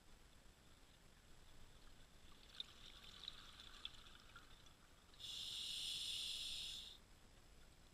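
Scuba diver breathing through a regulator, heard faintly: a crackle of exhaled bubbles in the middle, then a steady hiss of inhaled air lasting about two seconds near the end.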